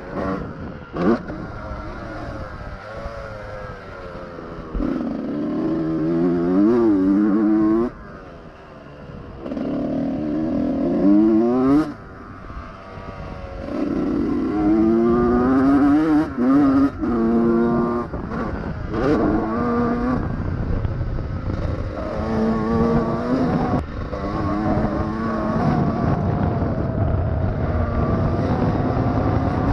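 Honda CR125 two-stroke single-cylinder motocross engine revving hard in repeated bursts, the pitch climbing through each burst and falling away as the throttle shuts, about half a dozen times. A few sharp knocks come in between.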